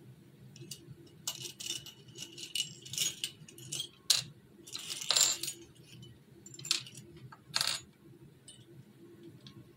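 A shiny plastic or foil bag being handled and crinkled, in a run of irregular crackly rustles that stop near the end.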